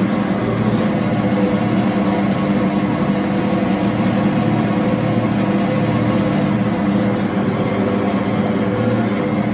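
Raisin grinder machine running steadily, a constant mechanical hum with an even hiss over it.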